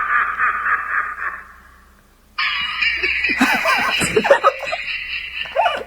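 Snickering laughter that fades away, then after a short pause a sudden loud mix of noise and voice-like sounds starts.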